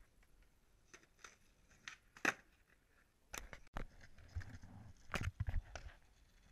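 Skateboard on concrete: the wheels rolling with a low rumble in the second half, and several sharp clacks of the board hitting the ground, the loudest about two seconds in.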